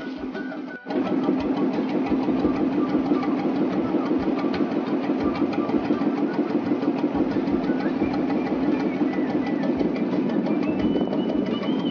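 Small wooden fishing boat's engine running steadily under way, with a fast, even knocking beat. It cuts in about a second in.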